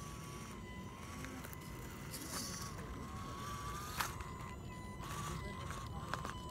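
WPL Ural 4x4 RC crawler's electric motor and gear train whining steadily, its pitch wavering slightly with load as it climbs over rocks. Crunches and scrapes of tyres on rock come with it, and a sharp knock about four seconds in.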